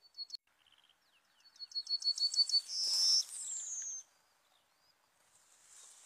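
Yellowhammer singing one song phrase: a run of quick repeated high notes that ends in a longer held note and a slurred falling note. A short single note comes just before.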